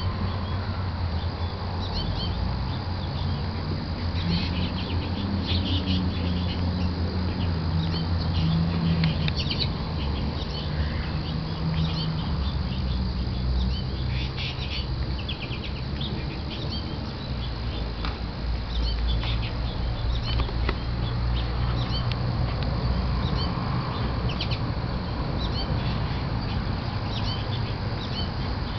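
A flock of American goldfinches calling constantly: many short, high chips and quick twittering runs, with wing flutters as birds come and go from the feeder, over a steady low hum.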